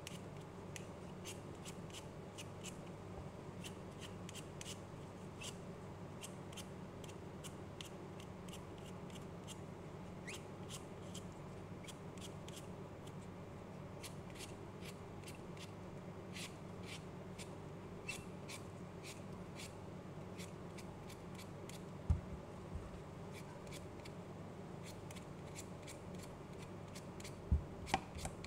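Y-shaped vegetable peeler scraping the skin off a raw potato in quick short strokes, about three a second, pausing now and then. A low steady hum runs underneath, and there are a couple of dull knocks in the last several seconds.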